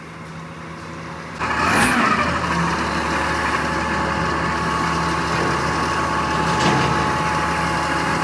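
Large engine running at a steady speed, becoming suddenly louder about a second and a half in, then holding steady with a thin whine.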